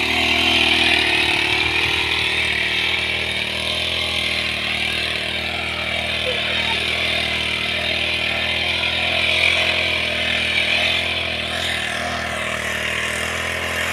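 Small engine of a backpack power sprayer running steadily at a constant speed, with the hiss of the spray.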